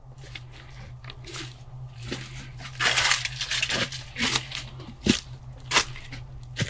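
Scattered rustling and crunching noises, the loudest a burst about three seconds in, with a few sharp clicks later, over a low steady hum.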